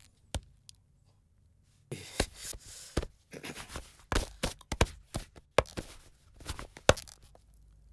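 Irregular sharp taps and scuffs of footsteps and shuffling on a hard floor, with a hissing rustle, starting about two seconds in after a near-silent pause.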